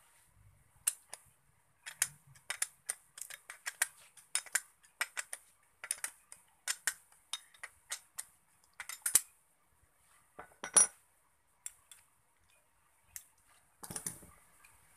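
Steel three-jaw bearing puller clinking and rattling against a water pump motor's armature as it is handled and taken off the shaft. It makes a run of irregular sharp metallic clicks, the loudest a little under 11 seconds in, with a short clatter near the end.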